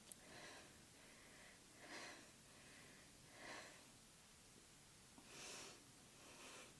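A woman's faint, heavy breathing: about five breaths, a second and a half to two seconds apart.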